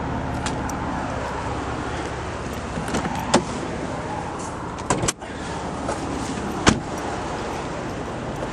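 2002 Nissan Stagea 25t RS Four's 2.5-litre turbocharged straight-six idling steadily, with a few sharp clicks and a thump about five seconds in as the car's body is handled.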